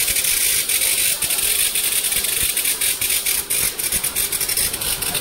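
Mumbai suburban electric local train moving slowly past: a loud hiss, starting abruptly, with rapid clicks and rattles running through it.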